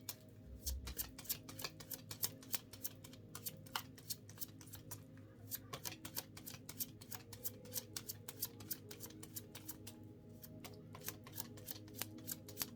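Tarot cards being shuffled by hand: a long, continuous run of quick, soft card clicks and riffles.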